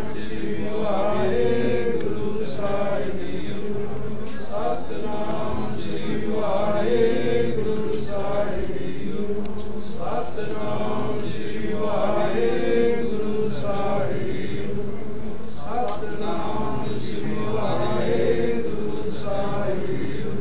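Sikh devotional chanting: voices repeating a short sung phrase in a steady rhythm, about once every second and a half, over a steady low drone.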